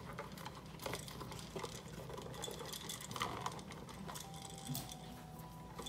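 Scattered light clicks and small rattles of hand tools and electrical wires being handled, over a faint steady hum.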